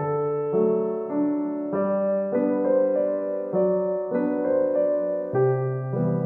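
Background piano music: a slow melody of held notes over sustained chords, a new note about every second.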